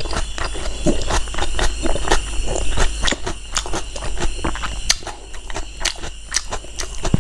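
Close-miked chewing of a mouthful of pork rib curry and rice: irregular wet mouth clicks and smacks, about three a second.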